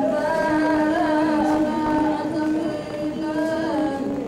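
Live traditional music: a singer holds a slow melody in long notes that slide and waver between pitches.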